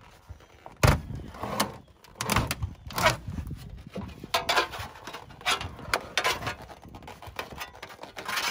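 Thin aluminum siding being pulled and bent off a camper wall by hand: irregular crinkling and scraping of the sheet metal, with the sharpest, loudest noise about a second in.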